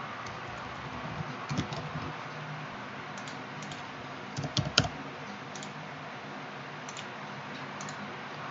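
Typing on a computer keyboard: sparse, irregular key clicks, with short louder flurries about one and a half seconds in and again around four and a half seconds in.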